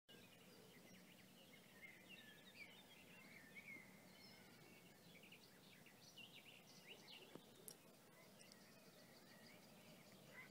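Faint dawn chorus: several songbirds chirping and warbling over a quiet steady hiss.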